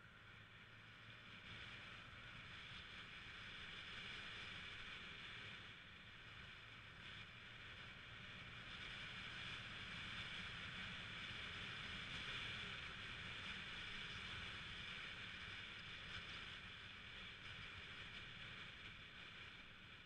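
Fairly faint, steady rush of wind and road noise from riding a Yamaha 125cc scooter, with a low rumble underneath; it swells and eases a little as the speed changes.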